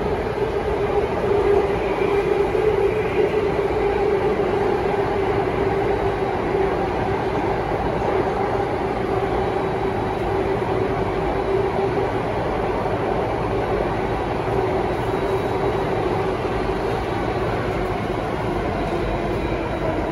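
Cabin noise of an Alstom Metropolis C830 metro car running in a tunnel: a steady rumble of wheels on rail with a constant droning hum, easing slightly in loudness over the first few seconds.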